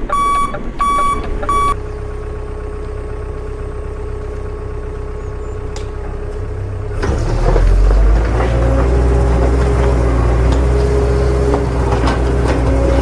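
Truck reversing beeper sounding about twice a second, stopping under two seconds in, then a truck's diesel engine sound: a steady low hum that becomes louder and deeper about seven seconds in, its pitch wavering.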